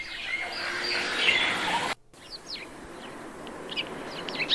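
Garden ambience sound-effect previews played back one after another. The first is outdoor background noise with some bird calls and cuts off abruptly about two seconds in. The second is birds chirping in short repeated notes over a steady hiss.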